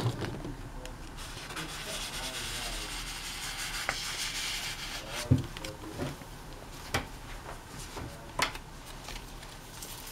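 A piece of cardboard scraped through oil paint on thick paper, a dry rasping rub that carries on for several seconds. In the second half come a few sharp knocks about a second and a half apart.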